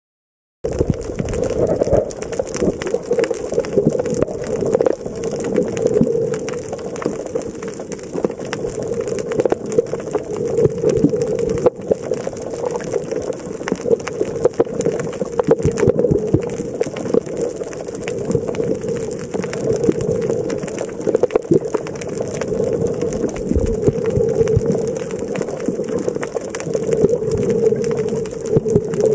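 Underwater sound picked up by a camera in a waterproof housing: a steady, muffled water rush with a dense crackle of small clicks. It starts suddenly about half a second in.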